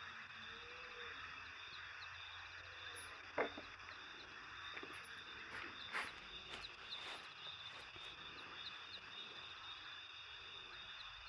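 Night insects chirring steadily: a constant fast, high-pitched pulsing chorus. A couple of brief faint clicks or knocks sound about three and a half and six seconds in.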